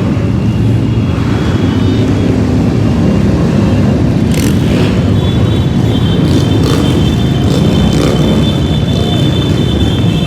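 Dense, steady rumble of many motorcycle engines running together, with steady high-pitched tones joining about halfway through.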